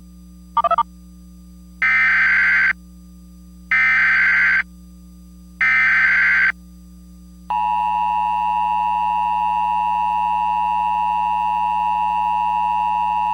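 Emergency Alert System tones: three short, evenly spaced bursts of SAME header data, each about a second long, then the two-tone EAS attention signal starting about seven and a half seconds in and holding steady. A brief blip comes just before the first burst, and a low steady hum runs underneath.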